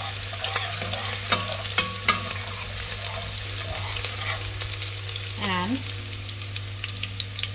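Chopped garlic and green chillies sizzling in hot ghee in a stainless steel pressure cooker as the garlic browns, with a steel ladle stirring and clicking against the pot.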